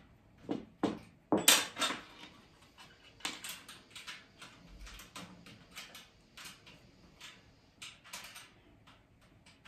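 Metal clinks and knocks from the frame and mesh panels of a metal trolley being handled while its bolts are tightened: a string of sharp irregular knocks, the loudest about a second and a half in, then quieter scattered clinks.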